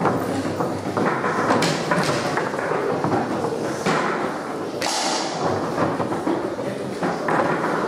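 Foosball in play: irregular sharp knocks of the ball against the plastic figures, rods and walls of the table, over the steady din of a busy hall.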